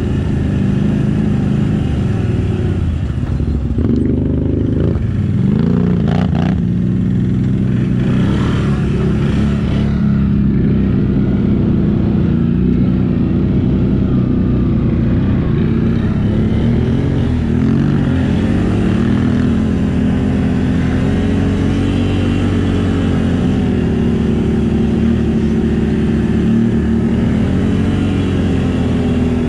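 Off-road vehicle engine running under load, the revs rising and falling again and again. A couple of sharp knocks come about four to six seconds in.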